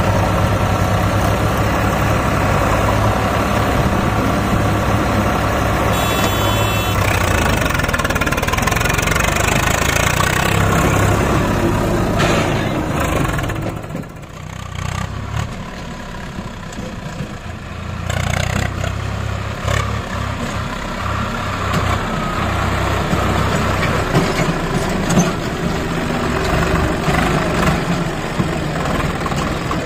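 Swaraj 744 FE tractor's three-cylinder diesel engine running steadily. It drops in level around the middle, then picks up again.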